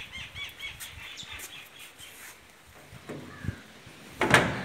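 Small birds chirping rapidly in short repeated notes for the first two seconds or so. Near the end comes a brief loud metallic rattle, as the sheet-metal gate is pushed open.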